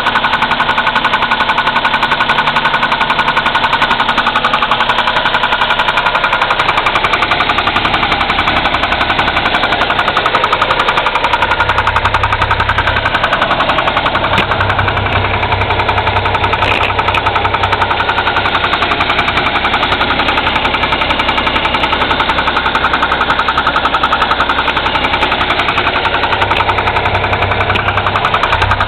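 Engine running with a fast, even rattle that persists despite new connecting-rod bearings and adjusted valves; its cause is unknown to the owner. A low hum joins in at times, around the middle and near the end.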